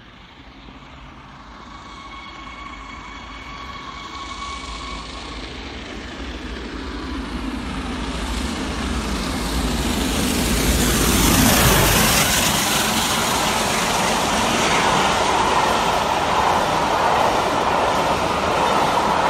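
Peppercorn A1 three-cylinder Pacific steam locomotive Tornado approaching at speed and passing close by. Its noise builds steadily to a peak as the engine passes about eleven seconds in, then its coaches rush past in a loud, steady roll.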